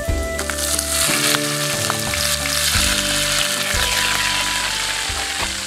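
Hot oil poured from a wok over shrimp and chopped chillies in a split bamboo tube, sizzling sharply. The hiss starts about half a second in, stays strong for several seconds, then dies away near the end.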